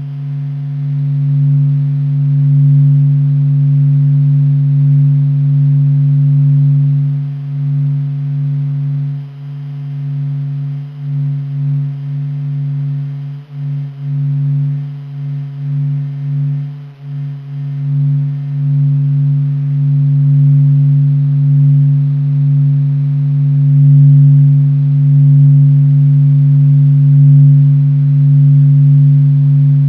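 NASA's sonified solar data, the sun's vibrations made audible: a deep, steady hum with fainter higher overtones, swelling and dipping in loudness, with a wavering dip in the middle.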